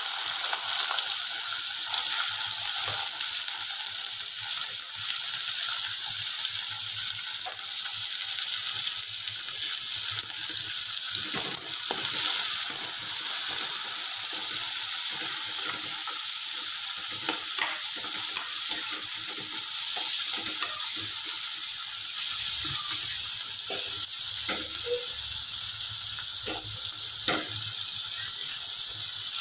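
Chopped onions and green chillies sizzling steadily in hot oil in a pan, with a spoon clicking and scraping against the pan now and then as they are stirred.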